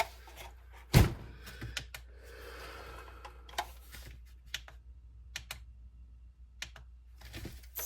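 Hands handling small plastic parts: scattered light clicks and taps, with one louder thump about a second in and a short stretch of soft rustling in the middle.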